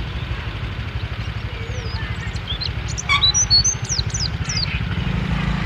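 A young pleci (white-eye) chirping a short run of high, quick, down-slurred notes about two seconds in: a three-month-old bird starting to sing. A steady low traffic rumble runs underneath and grows louder near the end.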